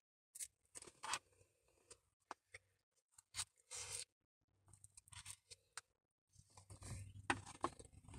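Close-up eating sounds of ice cream taken off a spoon: a scatter of short smacks, clicks and scrapes from the mouth and spoon. A denser rustling builds near the end.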